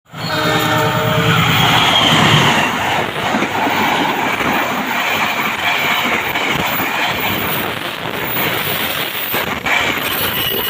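Trains passing each other at close range: a steady, loud rumble and rattle of the rolling train, with a held pitched tone over roughly the first two seconds.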